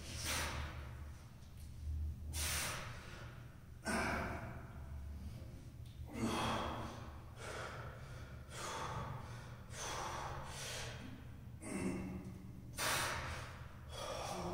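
A man breathing hard while doing rows on TRX suspension straps: a sharp, forceful breath every second or two, a few of them with a short strained grunt.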